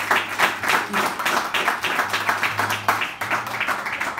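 A small group of people clapping and applauding, dense, irregular hand claps.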